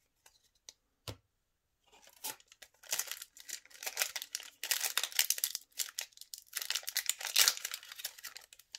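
A foil Yu-Gi-Oh! booster pack wrapper crinkling and tearing as it is handled and ripped open by hand, in dense crackly bursts that start about two seconds in and are loudest near the end. A light tap comes about a second in.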